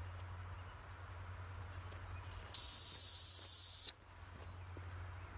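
Dog training whistle blown once: a single high-pitched blast of just over a second, with a slight flutter. It is the sit command to a pup being trained to sit to the whistle.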